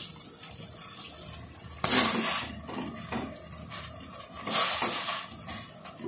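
Whole fish dropped one at a time into a pot of boiling broth: two splashes about two and a half seconds apart, over the steady bubbling of the boil.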